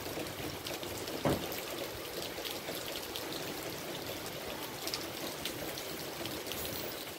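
Steady tropical rain falling, an even rushing hiss with fine scattered drop ticks. A single short thump about a second in.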